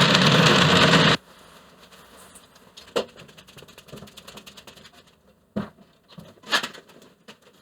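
Grizzly G0555LANV 14-inch bandsaw running loudly, the sound cutting off abruptly about a second in; after it, quieter quick ticking and a few light knocks.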